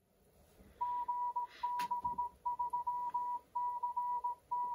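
Retevis MA1 dual-band transceiver's speaker playing a received signal on a 2 m repeater channel: a single steady mid-pitched tone keyed on and off in quick groups of short beeps, starting about a second in.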